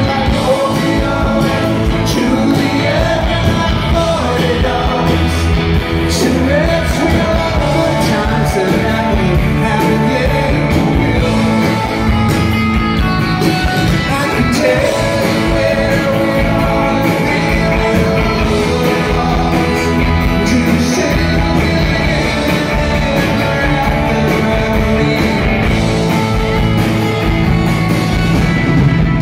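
Rock band playing live: electric guitars with a man singing the lead vocal, heard from within the audience.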